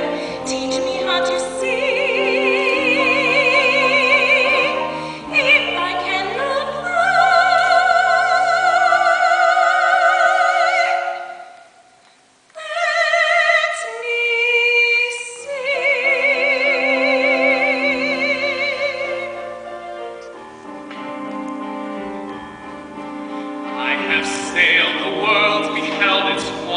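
Soprano singing long held notes with wide vibrato in a stage musical, over a light accompaniment, with a brief pause about twelve seconds in.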